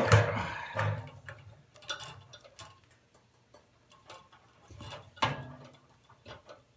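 Scattered clicks, light knocks and scrapes of metal parts being handled as a gas water heater's burner assembly is worked out of its chamber. The sound is busier in the first second, with a louder knock about five seconds in.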